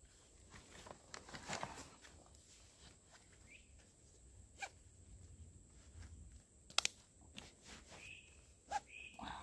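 Rustling and handling of a hiking backpack as it is shouldered and its straps adjusted, with scattered soft clicks and a sharp double click about seven seconds in.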